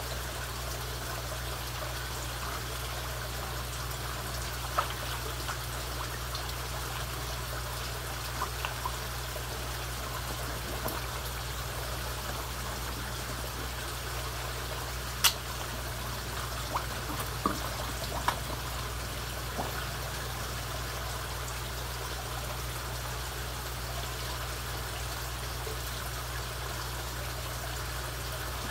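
Koi pond water trickling steadily over a low steady hum, broken by a few short sharp splashes and clicks as koi take pellets at the surface beside the hand, the loudest about halfway through.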